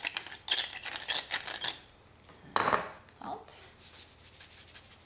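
Hand pepper mill grinding peppercorns: a fast run of dry rasping clicks, a pause with a short louder sound about two and a half seconds in, then fainter grinding again near the end.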